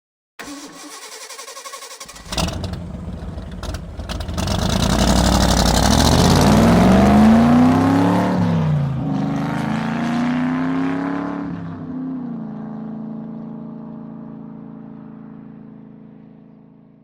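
Car engine sound effect: after a short lower run-up and a sharp knock about two seconds in, the engine revs up with rising pitch, drops once near the middle as at a gear change, climbs again, then holds a steady note and fades away.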